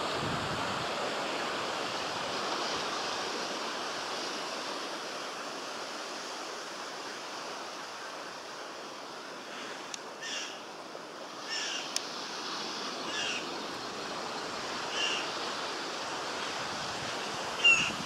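Steady rushing outdoor noise, like wind buffeting the microphone, with a handful of short high chirps from about ten seconds in, the loudest near the end.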